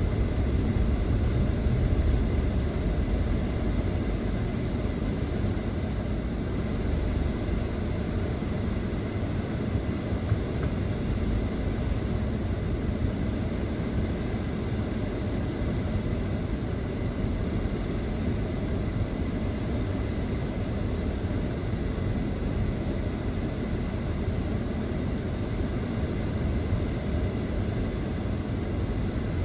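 Steady low rumble of a car moving slowly, heard from inside the cabin: engine and tyre noise.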